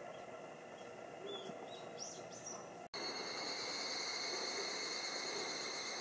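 Wild songbirds giving a few short chirps for about three seconds; then, at an edit, a louder steady high-pitched drone of a cicada chorus takes over.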